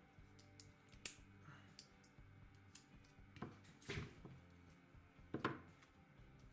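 Faint, scattered taps and clicks from handling laptop battery cells and meter probes on a workbench during cell-by-cell voltage checks, the clearest about a second in and twice more near the middle and later.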